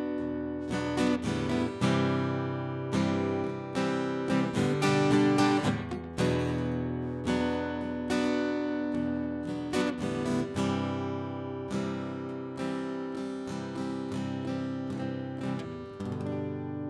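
Acoustic guitar music, plucked and strummed notes, ending on a last chord about 16 seconds in that rings out and fades.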